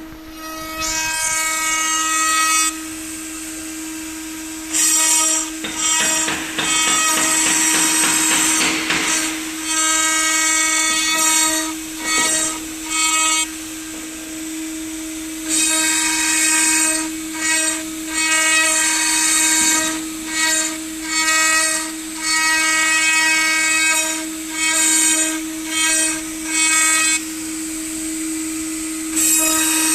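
Spindle of an ATC CNC router (AKM8020C) running with a steady tone, its bit cutting in repeated loud passes with a high hiss that start and stop abruptly. The passes last several seconds each at first, then shorten to about a second each near the end.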